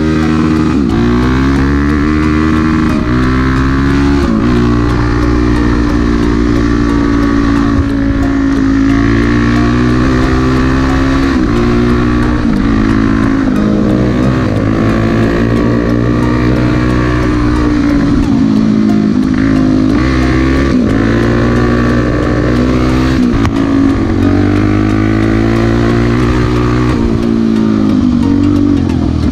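Single-cylinder four-stroke trail motorcycle engine running under way, its pitch rising and falling every second or two as the rider opens and closes the throttle and shifts gears.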